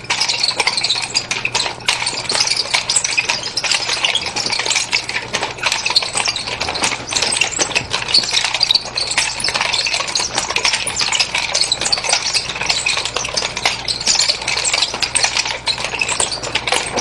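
Nunchaku chain rattling and clinking in a rapid, continuous clatter as the sticks are twirled, bounced and wrapped around the hand, with a faint steady low hum underneath.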